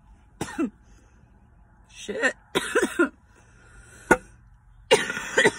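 A person coughing hard in three short fits after a hit of smoke from a bubbler pipe, with a single sharp click between the second and third fit.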